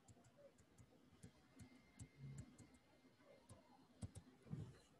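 Faint, irregular light ticks and taps of a stylus writing on a tablet screen, over near-silent room tone, with a couple of soft low bumps.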